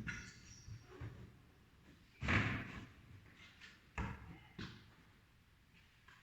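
A few separate knocks: a brief scraping clatter a couple of seconds in, then a sharp knock and a softer one about half a second later, with quiet between.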